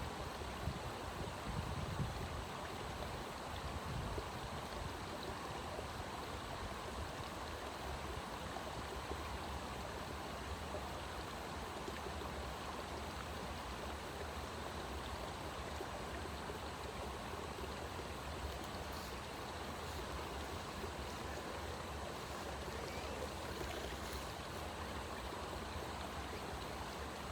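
Steady rushing of flowing water, like a stream, with a few soft low bumps in the first four seconds.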